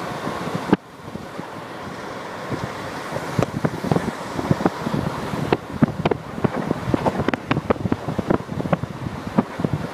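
Wind buffeting a phone's microphone held at an open window of a moving train, with the train's running noise underneath: a rushing noise broken by irregular crackles and thumps. The rush drops suddenly under a second in, then builds back up.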